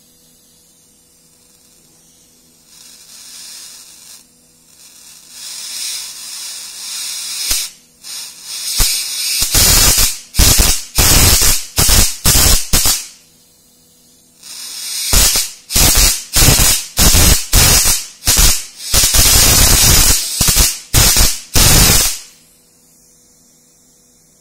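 High-voltage plasma arc from a CRT monitor's flyback transformer at about 27 kV, arcing in a rapid series of loud bursts switched on and off. A faint mains hum and a rising hiss come first, and the bursts stop about two-thirds of the way in after a short pause in the middle.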